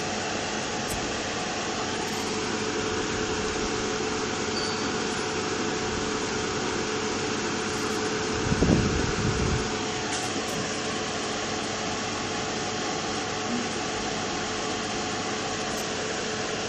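Hot-air rework station blower running steadily: an even airy hiss with a faint steady hum. About halfway through comes a brief low knock as tweezers prod the soldered QFN64 chip.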